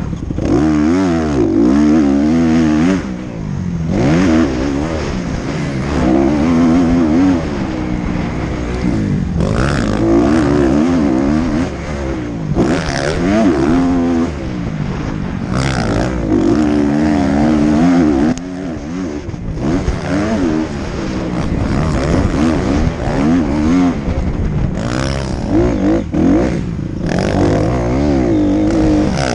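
Dirt bike engine revving hard under the rider, its pitch climbing and dropping again and again as the throttle is opened and rolled off, with several short lifts of the throttle.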